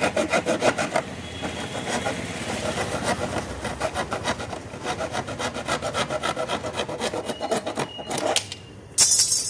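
A hand saw cuts through the scooter's plastic rear mudguard in quick, even back-and-forth strokes, trimming it so it will fit. Near the end there is a brief, loud, hissing scrape.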